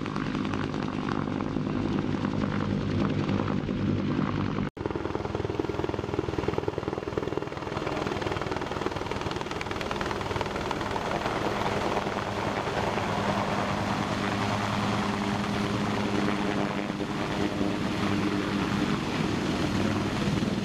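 AH-1 Cobra attack helicopter with its rotor and engines running steadily: an even rotor beat over a broad engine rush. The sound drops out for an instant about five seconds in.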